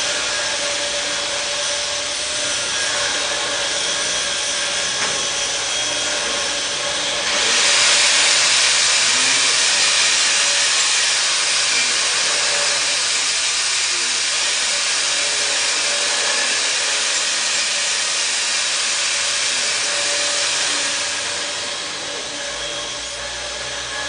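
Welding arc hissing and crackling, louder and harsher for about thirteen seconds in the middle, over a steady hum.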